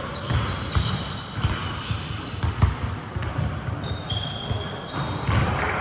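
Basketballs being dribbled on an indoor gym court, thudding roughly three times a second at an uneven pace.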